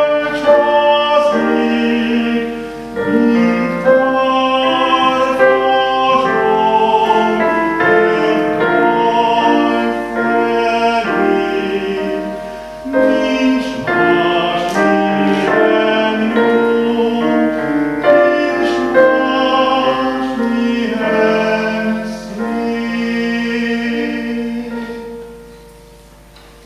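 Solo male voice singing in a classical, operatic style with vibrato, accompanied by a Roland FP-4 digital piano. The song ends about a second before the end, and the piano fades out.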